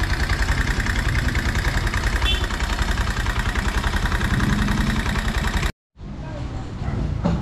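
Honda XR200 single-cylinder four-stroke engine idling with an even, pulsing beat and a noisy top end, which the owner suspects is the rocker arm. About six seconds in the sound cuts off abruptly, and a quieter noise with a couple of clicks follows.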